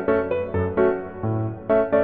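Background piano music: a steady run of notes, about four a second, over held bass notes.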